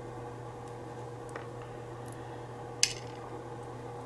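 A few small sharp clicks of tweezers handling lock pins on a work surface, the loudest about three seconds in, over a steady low electrical hum.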